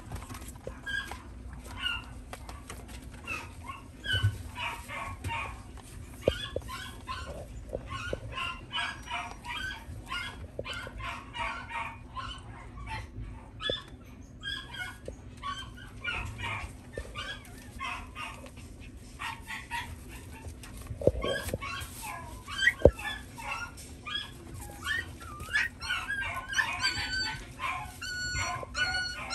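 Shiba Inu puppies playing, with many short high yips and whimpers and a few drawn-out whines near the end. Two sharp knocks come about two-thirds of the way through.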